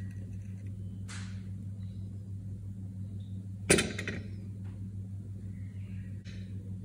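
A steady low hum under faint rustles as pomegranate seeds are picked from a dish and scattered over a ceramic plate of dip. One sharp knock comes about three and a half seconds in.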